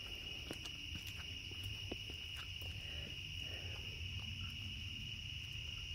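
Steady chorus of crickets trilling, with a few faint scattered clicks.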